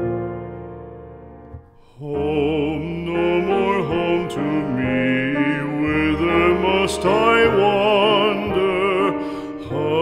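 Classical art song as background music: a piano chord fading away, then a trained voice singing with vibrato over piano accompaniment from about two seconds in.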